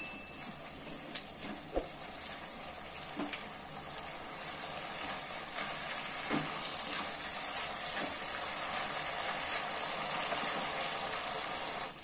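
Chicken and capsicum in a thick sauce sizzling and bubbling in a nonstick pan, with a spatula scraping and knocking against the pan now and then. The sizzle grows a little louder partway through.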